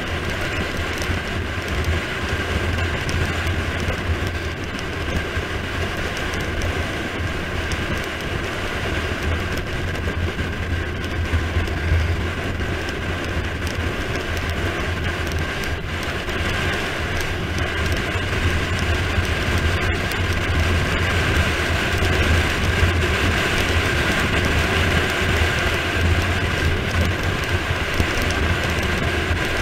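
Wind rushing over the microphone and tyres rumbling on asphalt during a fast road-bike descent: a steady, loud rushing roar that grows a little louder in the second half as speed builds.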